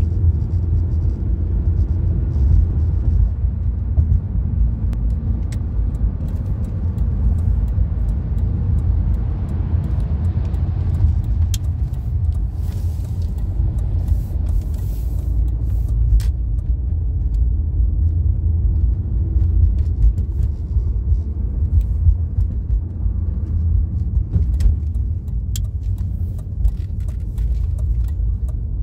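Steady low rumble of road and engine noise inside a moving car's cabin, swelling with a louder hiss midway, with a few light clicks.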